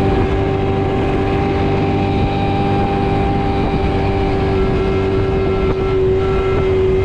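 Small boat's engine running steadily at a constant speed, a loud even drone.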